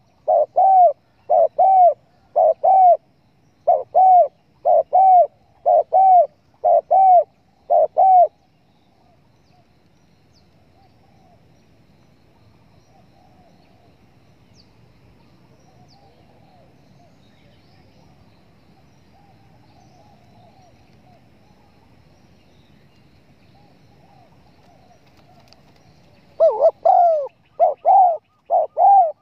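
Spotted dove (tekukur) cooing, played as a hunters' lure call: a run of loud, evenly paced coos, roughly two a second, for about eight seconds. Then comes a long stretch with only faint coos in the background, and the loud cooing starts again near the end.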